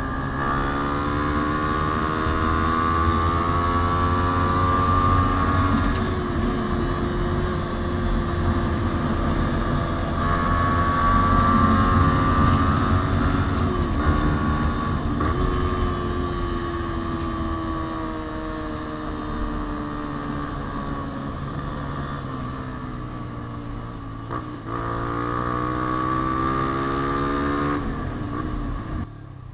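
Yamaha Sniper 150's single-cylinder four-stroke engine running through a JVT aftermarket exhaust while riding, its pitch rising and falling with the throttle. Brief dips in pitch at gear changes twice near the middle and once more later, after which it climbs again.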